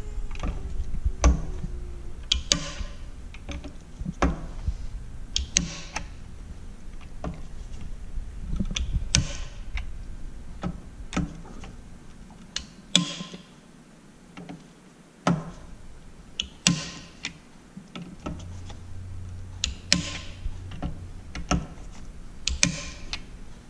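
Handheld torque driver, set at about 25, tightening scope ring screws one after another in a cross pattern: many irregular sharp clicks and ticks, a few with a brief rasp.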